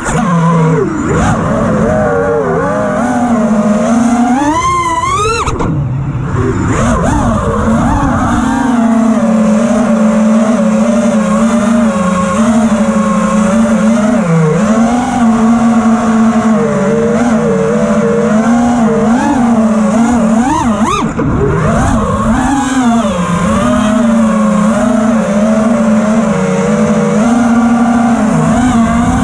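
A 5-inch FPV quadcopter's brushless motors (T-Motor F60 Pro IV, 1750 kV) whining steadily, heard from the onboard camera. The pitch wobbles with the throttle and sweeps sharply up a few times as the throttle is punched, at about five seconds and again about twenty seconds in.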